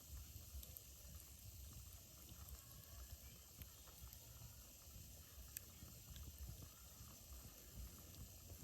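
Near silence: faint outdoor background with a low rumble and a couple of faint clicks.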